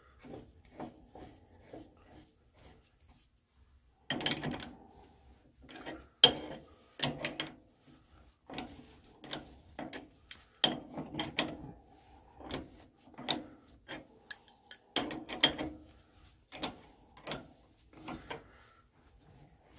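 A crescent wrench turning a threading die holder by hand to cut a thread on an O1 tool-steel rod in a lathe. Irregular metallic clicks and clanks come in clusters as the wrench is worked and repositioned.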